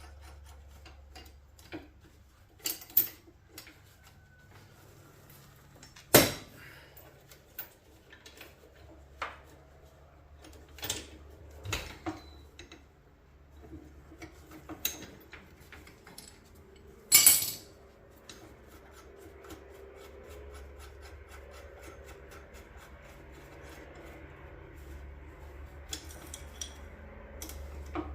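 Steel track chain and a small chain binder clinking and clanking as the homemade skid steer track chains are hooked and pulled together, with rubbing and scraping of metal in between. The knocks are irregular, and the two loudest come about six seconds in and again past the middle.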